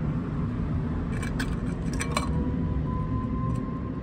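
Steady low engine rumble, with a few light clicks and taps between one and two seconds in, and a faint thin tone that starts about halfway through.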